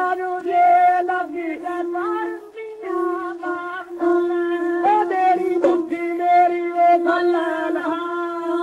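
Old Punjabi song played from a shellac 78 rpm gramophone record: a man singing over a steady held drone, the melody wavering above it.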